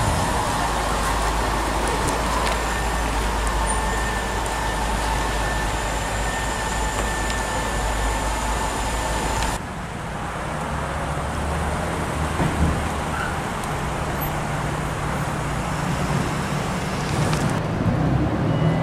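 Road traffic: car engines running at low speed. The sound changes abruptly twice, as it moves from one spot to another.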